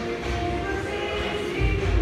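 Background music with a deep, heavy bass beat.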